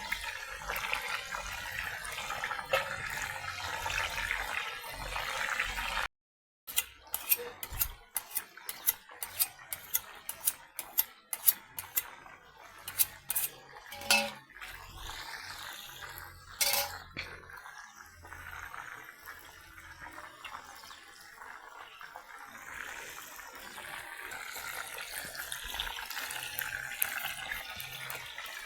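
Water running steadily, then a run of quick clinks and clatters of dishes and cutlery being handled, with a couple of louder knocks. Steady running water follows.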